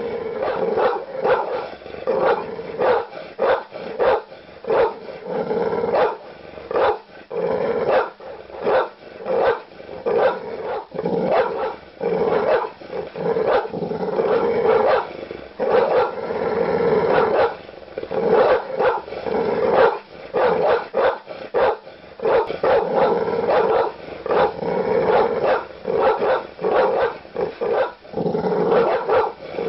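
Large dog barking aggressively and loudly, rapid repeated barks mixed with growling, without any real pause.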